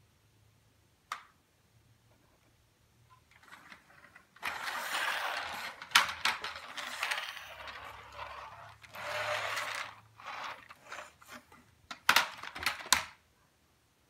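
Close rustling of fabric and handling noise for several seconds, broken by sharp clicks. A quick run of loud knocks comes near the end.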